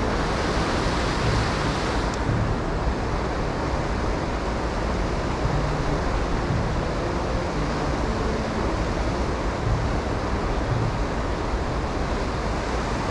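Steady rushing of river water pouring over a weir, a constant even roar with no rhythm; the higher hiss thins out about two seconds in.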